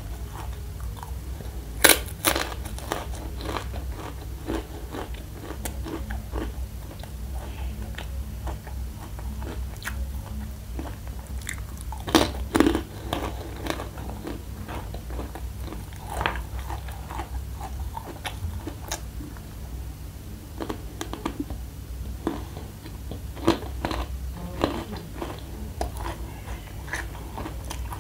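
Close-up crunching bites and chewing of crispy fried spicy macaroni, taken by hand a piece at a time. The loudest crunches come about 2 seconds in, around 12 seconds and near 24 seconds, over a steady low hum.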